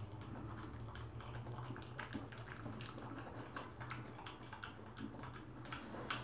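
Dog eating dry kibble mixed with tuna from a bowl: irregular crunching and clicking as it chews the pieces.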